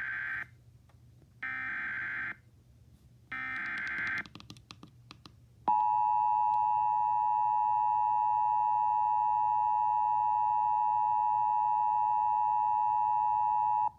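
Emergency Alert System activation heard over AM radio. The first SAME digital header burst ends just after the start, and two more identical buzzy data bursts follow about two seconds apart. After a few clicks, the steady two-tone EAS attention signal (853 and 960 Hz) starts about six seconds in and holds for about eight seconds, announcing a severe thunderstorm warning.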